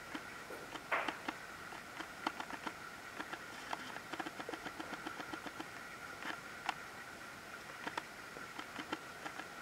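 Cat chewing and mouthing a pink toy: soft, irregular clicks and ticks, thickest about a second in, over a faint steady high whine.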